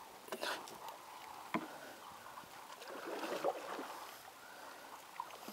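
Water swishing and splashing along a wooden canoe as it is propelled through the lake, with a single sharp knock about one and a half seconds in.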